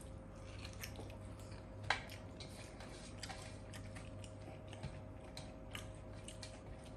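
Small scattered clicks and taps of eating by hand from a metal plate: chewing, and fingertips mixing and scraping rice against the metal, with one sharper click about two seconds in. A steady low hum runs underneath.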